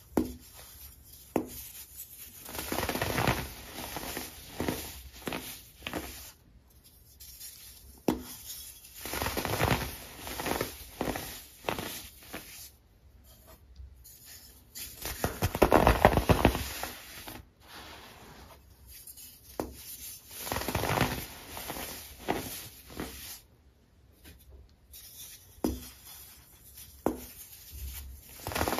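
Moulded shapes of dyed baking soda being squeezed and crushed by hand, crunching and crumbling in repeated bursts, loudest about halfway through.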